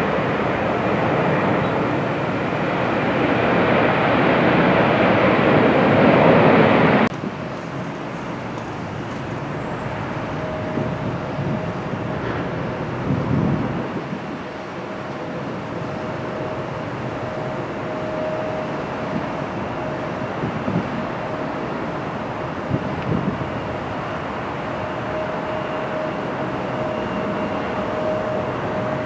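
Jet noise of a McDonnell Douglas MD-11 freighter's three engines on its runway roll, growing louder and then cut off abruptly about seven seconds in. After that comes the quieter, steady jet noise of a Boeing 787-8 approaching and landing, with a faint steady whine over it.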